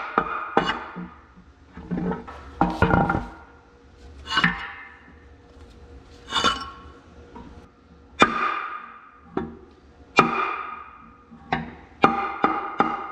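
Background music of plucked or struck ringing notes at an uneven pace, coming quicker near the end.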